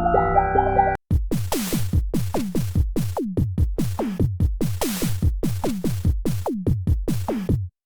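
Electronic drum-machine pattern: deep electronic kick drums that drop sharply in pitch, about three a second, with hissy snare and hi-hat hits. It starts about a second in, after the end of a pitched instrument phrase, and stops abruptly near the end.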